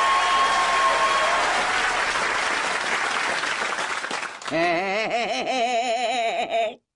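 Studio audience applauding steadily. About four and a half seconds in, the applause cuts off and a short pitched sound with a wavering, vibrato-like pitch takes over for about two seconds, then stops abruptly.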